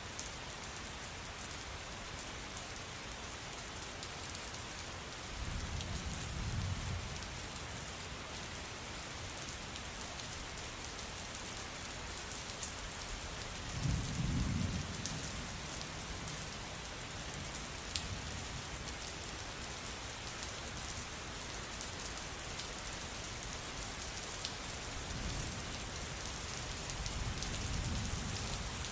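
Steady rain falling, with a few sharp drop ticks, and three low rumbles of distant thunder: one about six seconds in, a louder one about halfway, and a longer one near the end.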